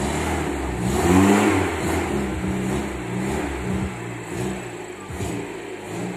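Owner-type jeep's Toyota 4K four-cylinder engine revving up briefly about a second in, then running at low revs as the jeep pulls slowly forward.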